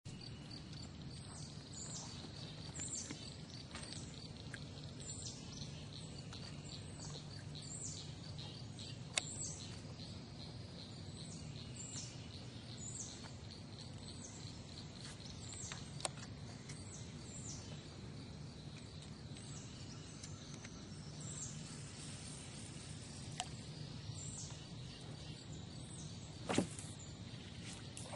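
Faint outdoor ambience by a pond: a bird's short high call repeating about once a second over a steady high buzz, with a few sharp clicks, the loudest near the end.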